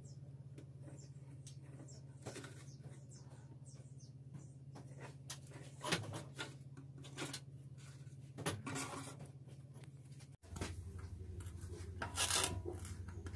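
Ballpoint pen drawing lines along a plastic ruler on a sheet, in short scratching strokes with the ruler shifting, over a steady low hum. Near the end there is a louder scraping burst.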